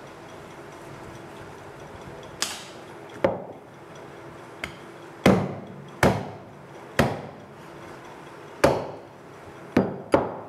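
Butcher's knife chopping through goat meat into a wooden chopping block: about nine sharp knocks at uneven intervals, starting a couple of seconds in.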